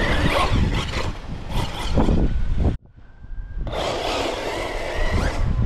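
Team Corally Asuga XLR 6S RC buggy running at speed onto dirt, its tyres spraying dirt, under heavy wind buffeting on the microphone. The sound drops out suddenly for about a second just before halfway, then builds back.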